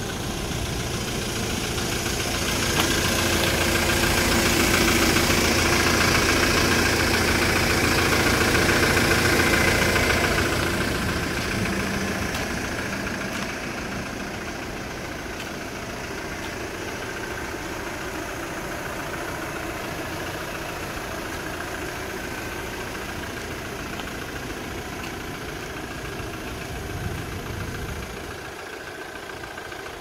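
Hyundai Porter refrigerated truck's engine idling steadily. It is louder for the first ten seconds or so, then settles to a quieter, even running.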